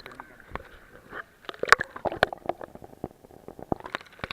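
Water gurgling and splashing, with many irregular sharp splats and drips.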